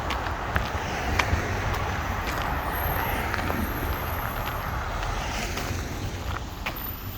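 Car tyres hissing along a slushy, snow-covered street as traffic passes, the rush easing off towards the end, with footsteps crunching in snow as scattered ticks.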